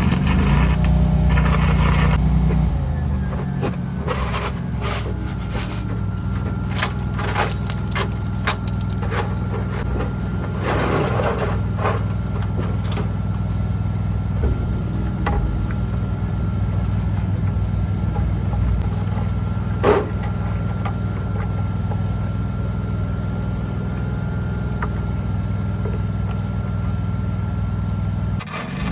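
An engine running steadily at a constant speed, with scattered knocks, clicks and scrapes of metal work over it; one sharp knock stands out about two-thirds of the way through.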